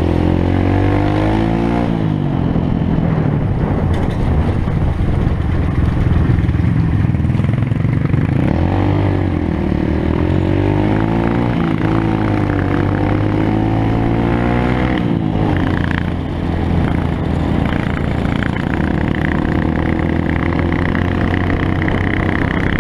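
Motorcycle engine running under the rider while riding, its note rising and falling with the throttle, with a brief dip about fifteen seconds in.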